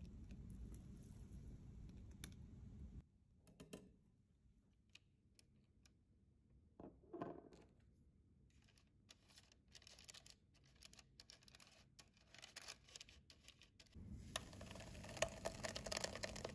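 Quiet kitchen handling sounds: scattered small clicks and scratches from parchment paper and a metal loaf pan being handled. Near the end, a louder wet patter with clicks as thick batter is poured into the paper-lined loaf pan.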